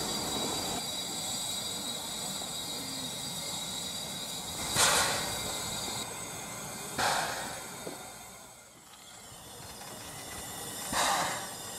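Steam locomotive A 428 hissing out short bursts of steam, three times at irregular intervals of two to four seconds, over a steady low background.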